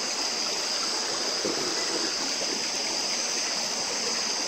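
River water rushing steadily over rocks, with a steady high-pitched chorus of night insects over it.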